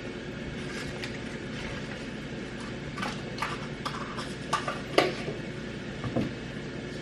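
A spoon clinking and tapping against the mixing bowl and cupcake pan as cake batter is scooped into paper liners, a scattered run of light knocks with one louder clink, over a steady background hum.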